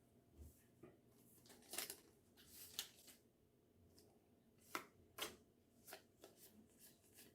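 Pokémon trading cards being handled: faint rustling, with a handful of light, crisp card flicks.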